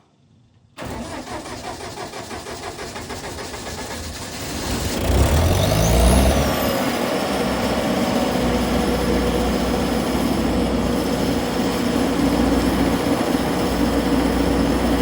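An engine cold-started: the starter cranks for about four seconds, then the engine catches, revs up briefly and settles into a steady idle.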